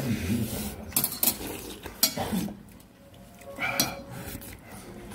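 Cutlery clinking against bowls and dishes at a dining table: several separate, sharp clinks a second or so apart.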